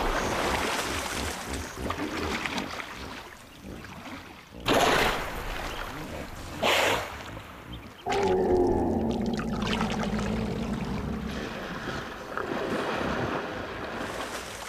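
Hippopotamus in a river, with water sloshing and two sudden loud splashes about five and seven seconds in. Then a deep, drawn-out hippo bellow lasts about three seconds and falls slightly in pitch.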